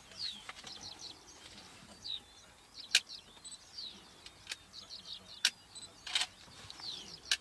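Small birds calling with many quick, falling chirps. About five sharp clicks cut in through the second half and are the loudest sounds.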